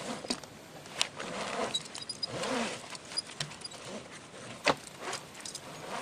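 Steel logging cable and its choker hardware being handled against a redwood log: scattered sharp clicks and a few light metallic clinks over rustling and scraping.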